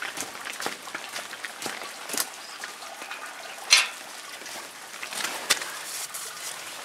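Rain pattering on surfaces, with many irregular sharp taps and one louder knock about three and a half seconds in.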